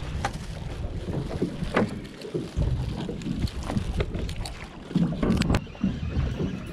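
Wind buffeting the microphone and water slapping a small fishing boat's hull at sea, with scattered knocks and clicks from handling on deck.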